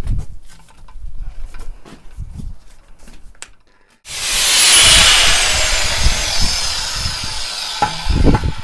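Light knocks and handling noise, then about four seconds in an angle grinder cuts in abruptly and grinds through steel rebar with a loud hiss, a whine falling in pitch as the disc bogs under load. A few dull thumps near the end.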